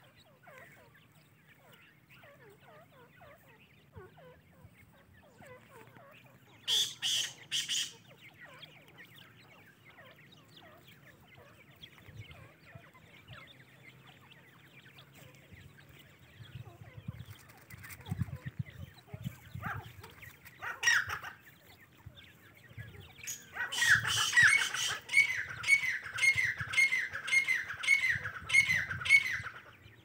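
Francolin (teetar) chicks calling in grass: three loud shrill calls about seven seconds in, faint scattered chirps, and a fast run of falling calls, about two a second, over the last six seconds. A few low thuds come midway.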